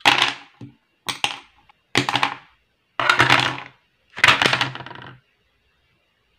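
Five sharp clattering knocks about a second apart, each ringing briefly: art supplies (pens, pencils and a plastic watercolour palette) being set down one after another on a wooden tabletop.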